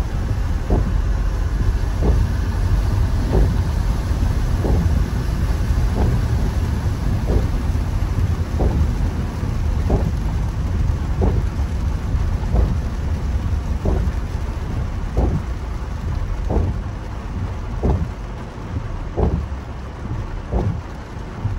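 Heavy rain drumming on a car, over the low rumble of tyres and engine heard from inside the cabin, with a soft thump about every 1.3 seconds in steady rhythm, as the windscreen wipers sweep. The overall level eases a little in the last few seconds.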